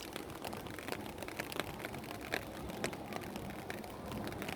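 Light drizzle, scattered raindrops ticking irregularly on an umbrella held overhead, over a steady rush of gusty wind.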